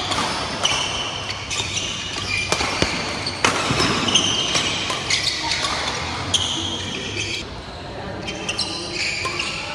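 Badminton rally: repeated sharp cracks of rackets striking the shuttlecock, mixed with short high squeaks of players' shoes on the court floor, echoing in a large hall.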